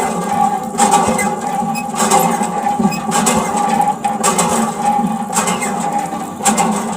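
A small motor running steadily, with a hum and a higher whine and a rhythmic surge about once a second.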